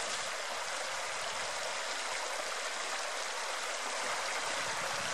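Shallow river rushing steadily over stones and riffles.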